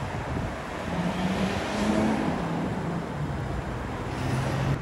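Road traffic passing on a parkway: car engines and tyres swelling past about two seconds in and again near the end, with wind buffeting the microphone throughout.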